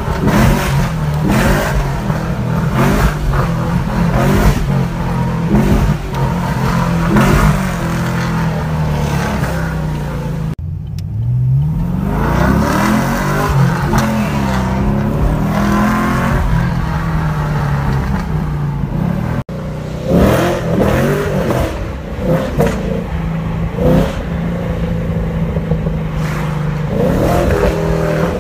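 Chevrolet Camaro SS's 6.2-litre V8 with a loud exhaust, heard from inside the cabin while driving: repeated revs and hard pulls, the engine note climbing and dropping as it accelerates through the gears. The sound breaks off abruptly twice.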